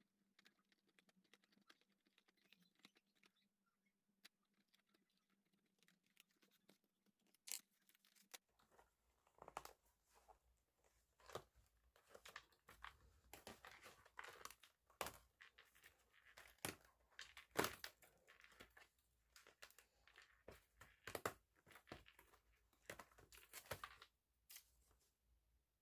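Spiral notebook being taken apart by hand: an irregular run of short paper tearing and crinkling sounds, starting about eight seconds in.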